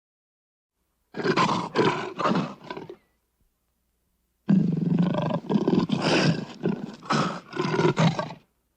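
Persian (Asiatic) lion roaring in two bouts of pulsed, grunting roars. A short bout of about three roars starts about a second in, and a longer series of about seven follows after a gap of dead silence.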